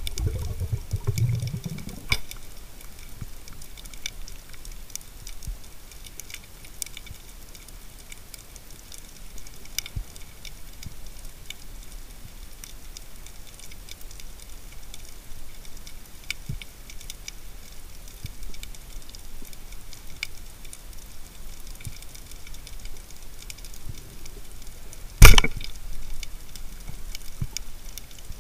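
Underwater ambience with scattered faint crackling clicks and a low rush of water in the first couple of seconds. About 25 seconds in, a single sharp, loud crack: a band-powered speargun firing its shaft.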